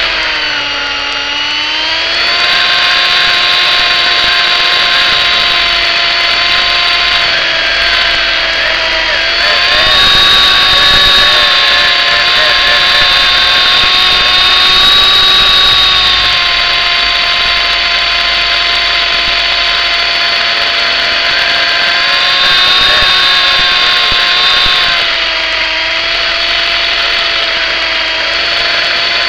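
MJX F45 single-rotor RC helicopter's motor and rotor running with a steady high whine, heard up close from the helicopter itself. The pitch dips about a second in and rises again, and it steps up about ten seconds in as the throttle changes.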